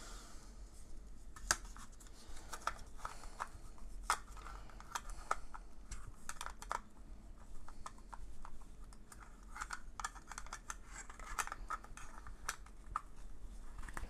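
Irregular light plastic clicks and scraping as an X-Sense XS01-WT Wi-Fi smoke detector and its small plastic parts are handled and fitted by hand.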